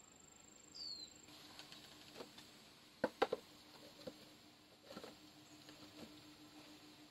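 Scattered light clicks and taps, the loudest a quick pair about three seconds in. Under them, a faint steady high insect tone stops just over a second in, and a short falling bird chirp comes just before it.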